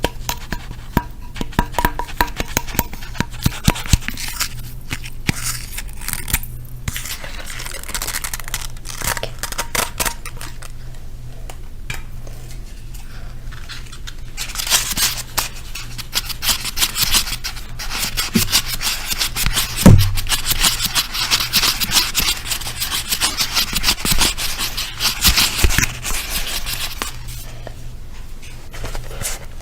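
Close-miked tapping and rubbing on objects, as in ASMR. Quick light taps and clicks come first; from about halfway, dense scratching and rubbing take over, with a single low thump about two-thirds in. A steady low hum runs underneath.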